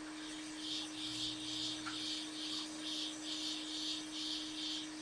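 A hot air rework gun running as it heats up, with a steady hum, under a rhythmic high chirping that pulses about twice a second.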